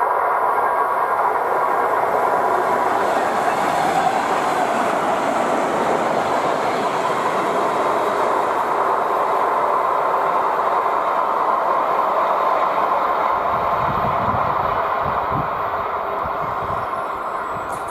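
ER2T electric multiple unit passing at speed: a steady rush of wheels on rail with a faint steady whine over it. A run of low wheel thuds comes about three-quarters of the way through, and the sound begins to fade near the end.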